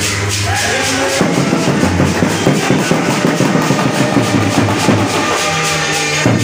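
Music with drums keeping a busy, steady beat.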